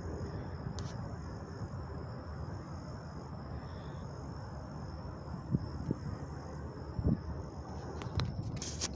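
Insects trilling steadily over a low rumble, with a few short knocks and clicks in the second half.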